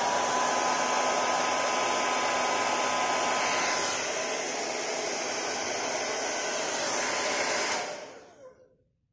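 Hand-held hair dryer blowing, its motor whine rising as it steps up louder right at the start. It runs steadily, eases slightly about four seconds in, and is switched off near the end, fading out over about a second.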